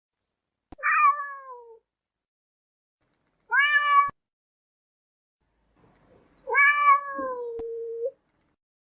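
Domestic cat meowing three times: two falling meows a few seconds apart, then a longer meow that drops and is held low near the end.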